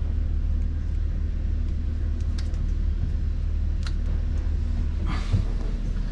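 Steady low diesel engine rumble, with a few light clicks as a wire connector on the engine's cooling water transmitter is handled, and a short rustle about five seconds in.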